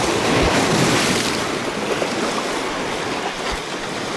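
Sea waves washing against a rocky shore: a surge swells over the first second or so, then settles into a steady wash.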